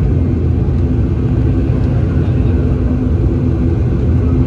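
Airliner engine noise heard inside the passenger cabin: a loud, steady low rumble with a faint hum.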